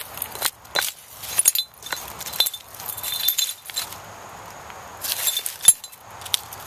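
Dry leaves and twigs crackling and crunching underfoot, with a few short, light glassy clinks from broken glass shards in the litter between about one and a half and three and a half seconds in. A sharp snap near the end is the loudest sound.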